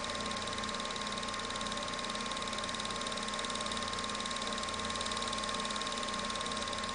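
Home-movie film projector running: a steady mechanical whir with a fine, rapid, even ticking and a thin constant high tone.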